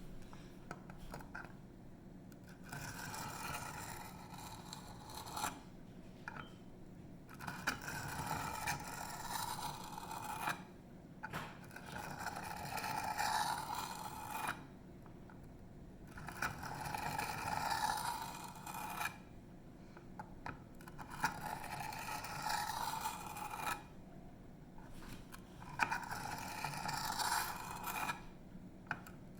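Knife blade scraping along a wet coarse sharpening stone in repeated runs of strokes, each run lasting two to three seconds with short pauses between. This is the coarse grinding stage that raises a burr on the edge.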